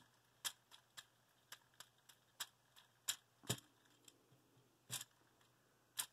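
Light plastic clicks and taps of a Transformers action figure's parts being handled and fitted together, about a dozen short irregular clicks.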